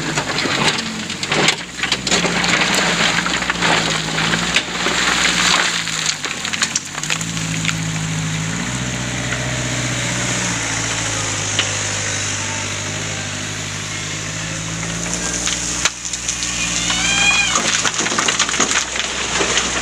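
Backhoe engine working under load, its pitch stepping up and down, with a rattling clatter of sand and stones being dumped from the bucket in the first few seconds.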